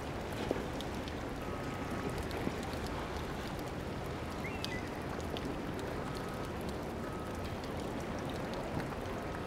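Steady wash of moving water and wind, with scattered faint clicks.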